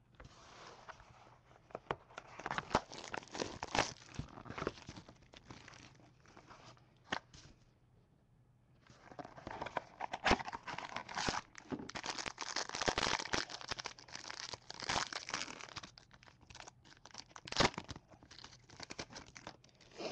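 Clear plastic wrapping of a trading-card pack being torn and crinkled by hand, in two spells of rustling with a pause of a few seconds between.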